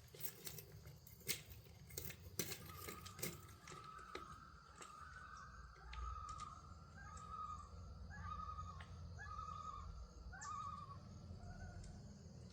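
A bird calling: a run of short, quick trilled notes repeated over and over, with a few sharp clicks in the first few seconds and a low steady rumble underneath.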